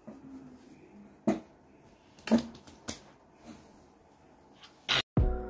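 A few sharp clicks and knocks of plastic Play-Doh tubs and tools handled on a table, then a low thump about five seconds in as music begins.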